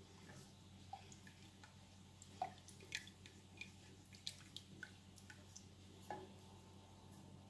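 Wooden spoon stirring thickening béchamel sauce in a steel saucepan: faint, scattered wet clicks and pops, over a faint steady low hum.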